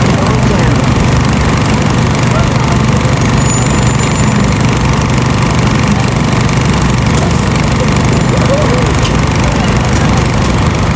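A steady, loud mechanical drone with a low hum that holds unchanged throughout.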